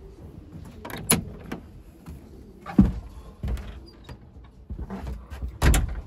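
Footsteps on a steel grate walkway, then a wooden loft door being unlatched and opened. A few scattered thumps and clicks, the loudest near the end.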